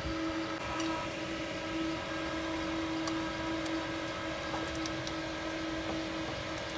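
A steady mechanical hum with a few light clicks.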